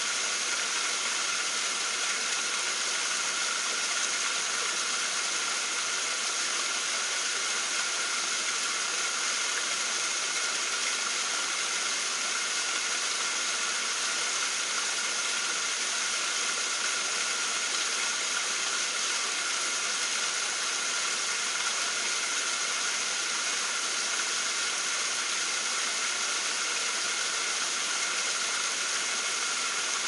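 Small mountain waterfall pouring over granite boulders into a pool: steady, unbroken rushing water with a hissing, high-weighted sound.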